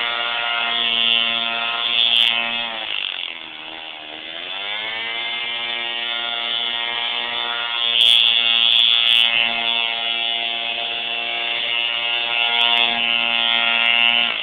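Two-stroke chainsaw engine driving a small hovercraft, running at high revs with a buzzing note. About three seconds in the revs drop briefly and climb back, then hold steady.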